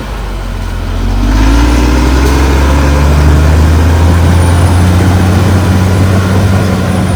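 CAT D6R XL bulldozer's diesel engine revving up, rising in pitch and getting louder over the first second or two, then running loud and steady.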